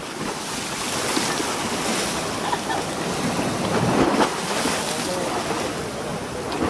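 Choppy sea waves washing and breaking in a steady rush, a little louder about four seconds in, with wind buffeting the microphone.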